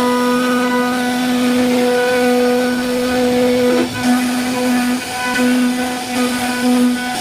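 CNC wood-carving router's spindle running as it cuts into wood: a steady pitched hum with a brief dip about four seconds in.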